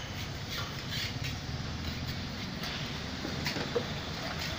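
Hand scrapers working old paint off a steel door in short, irregular strokes, over a steady low street rumble.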